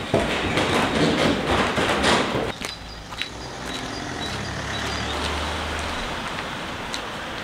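Footsteps and knocks going down a stairwell. About two and a half seconds in, this gives way to quieter street ambience with a vehicle engine running steadily and a few faint high chirps.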